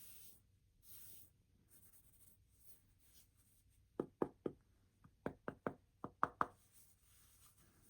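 Handling sounds: a few soft rubbing swishes, then about halfway through a quick run of about nine light, sharp taps on a hard surface.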